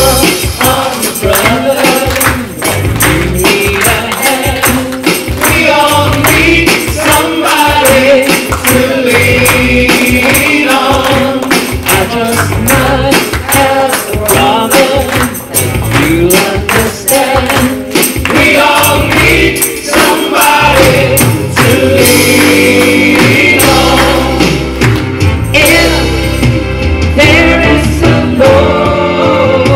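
A choir singing a song together, with a tambourine shaken and struck in a steady beat.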